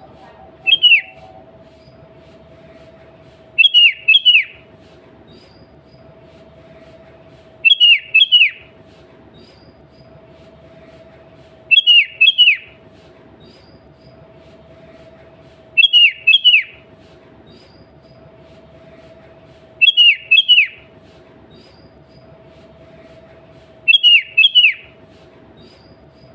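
Sooty-headed bulbul (kutilang) calling: a short phrase of two or three quick downward-sliding whistled notes, repeated about every four seconds with even spacing. A steady low hum runs under it.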